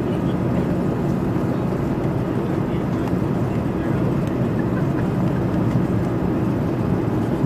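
Steady cabin noise of a jet airliner on its descent: a low, even drone of the underwing turbofan engines and the air rushing past the fuselage, heard from inside the cabin.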